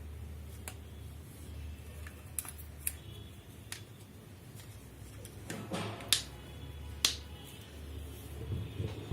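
Handling sounds while unboxing a smartphone: scattered light clicks and a brief rustle or scrape about halfway through, over a steady low hum.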